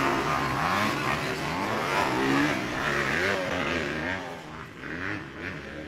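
Several motocross dirt bike engines revving up and down as they race on the track, their pitches rising and falling over one another, fading somewhat about four seconds in.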